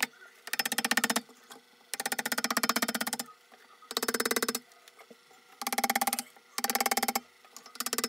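Background music: short phrases of rapid percussive rolls on a pitched, wood-block-like instrument, about five phrases broken by brief pauses.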